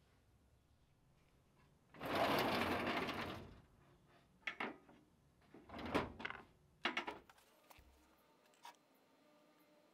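A steel cabinet drawer sliding open, a loud rolling run of about a second and a half, followed by a few knocks and clatters of wooden hammer handles being shifted in the drawer.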